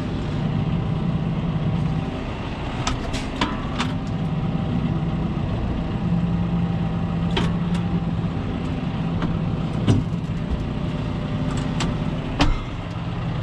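Tractor diesel engine running steadily at low revs, with several sharp metallic clanks over it.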